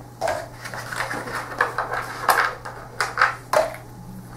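Small cardboard wargame counters clicking and tapping against each other and the game board as a stack is handled: an irregular string of sharp, light clicks, with the loudest few bunched in the second half.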